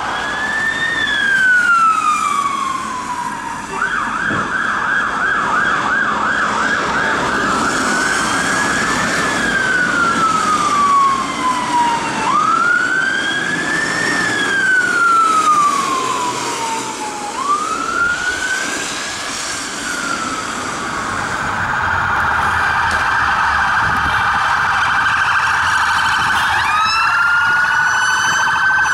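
Emergency vehicle sirens sounding: a slow rising-and-falling wail, switching briefly to a fast yelp, then a steadier high tone, with a new wail starting near the end.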